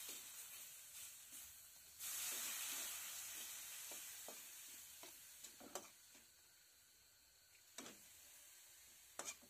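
Onion and ground spices sizzling in hot oil in an iron kadai, stirred and scraped with a metal spatula. The sizzle jumps louder about two seconds in, then slowly dies down, with scattered scrapes and taps of the spatula against the pan.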